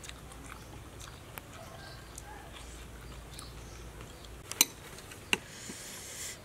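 Quiet background with scattered short clicks and taps. The loudest two are sharp clicks, about four and a half and five and a half seconds in.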